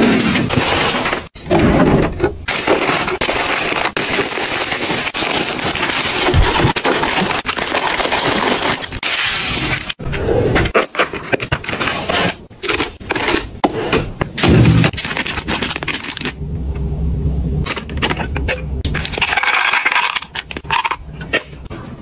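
Packaged goods being handled and restocked into a storage cabinet and plastic drawer organizers: wrappers and cardboard rustling and crinkling, broken by many small clicks, knocks and scrapes as items are tipped out and set in place.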